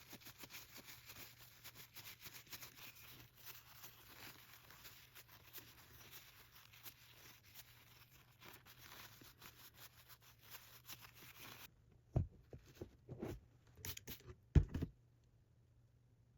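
A metal hand tool being polished by hand: fast, scratchy rubbing strokes for about twelve seconds. Then a few sharp knocks and clunks as the tool is handled and set down.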